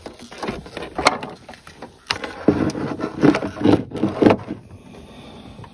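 Irregular handling noises: clicks, knocks and rustling as things are moved about by hand.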